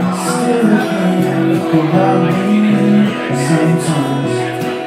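Two acoustic guitars strummed together in a live song performance.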